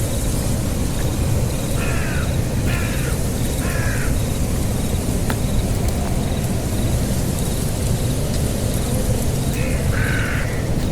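An animal's harsh, caw-like calls, three in a row about a second apart, then more near the end, over a steady low rumble.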